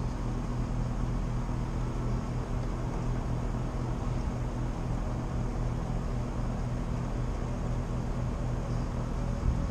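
Carrier Infinity heat pump outdoor unit running its condenser fan with a steady hum while the compressor is not running, the failure being traced to the board or the compressor. A brief knock near the end.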